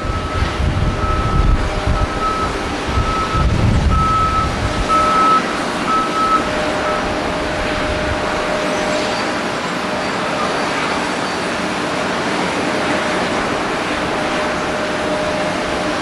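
Steady jet engine noise from an Airbus A340-300's four CFM56 turbofans, with wind buffeting the microphone for the first five seconds. A repeating electronic beep, like a vehicle's reversing alarm, sounds over the first six seconds or so.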